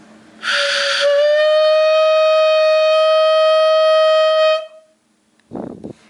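Homemade air horn, a balloon membrane stretched over a cut plastic bottle and blown through a straw, sounding one very loud, steady honk of about three and a half seconds. It starts with a rush of air, settles into a held pitch, and cuts off sharply.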